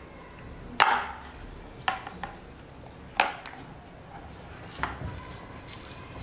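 A metal spoon knocking and clinking against a plate as a toddler scoops at her food: six sharp clinks, the two loudest about a second in and about three seconds in.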